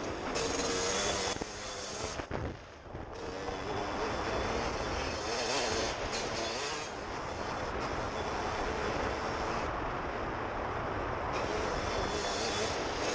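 Suzuki RM125 two-stroke dirt bike engine running under way, with wind noise on the helmet-mounted camera; the sound drops away briefly about two seconds in and then builds back up.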